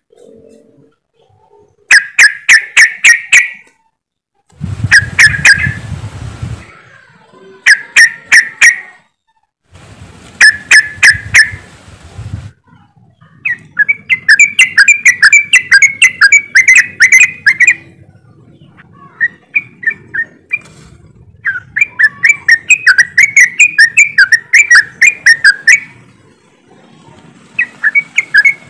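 A group of yellow-vented bulbuls chattering, in loud bouts of quick, bubbling calls a second to several seconds long with short pauses between.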